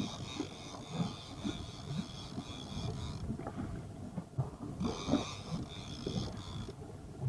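Fishing reel whirring in two spells, about three seconds and then about two seconds, as a hooked tuna is played toward the boat, over irregular low knocks and rumble.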